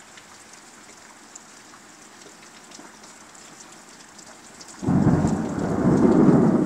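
Steady rain pattering against a window, then, almost five seconds in, a clap of thunder starts suddenly and rolls into a loud, low rumble.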